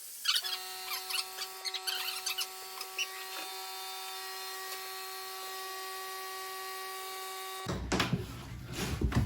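Electric drill running at a steady speed with an even motor whine, which stops abruptly near the end. Low rumbling knocks and handling noise follow.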